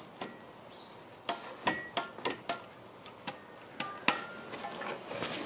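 Irregular metallic clicks and knocks, about a dozen, some with a brief ringing tone, from the bare metal turntable platter and its spring-loaded mechanism being handled.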